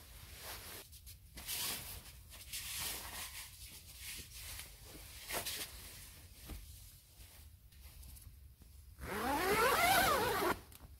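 Tent door zipper being opened, with a few short scrapes and rustles of the canvas. About nine seconds in comes one long zip, the loudest sound.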